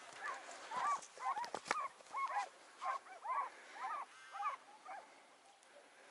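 Hare hounds barking on the trail of a hare: a quick run of short, yelping barks, about two or three a second, dying away about five seconds in. A couple of sharp knocks come about one and a half seconds in.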